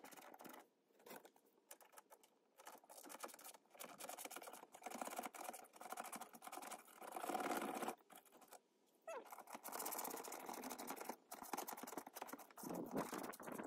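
Faint irregular scraping and rustling with scattered clicks: hands working loose a plastic liner and handling wiring.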